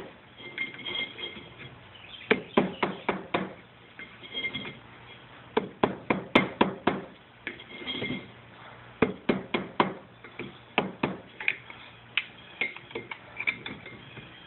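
Black powder charge in a small signal cannon being packed tight with paper wadding: bursts of quick, sharp taps, several a second, with short pauses between bursts.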